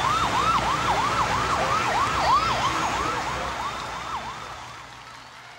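Emergency-vehicle siren in a fast yelp, sweeping up and down about two and a half times a second over a steady noisy background. It fades out over the last couple of seconds.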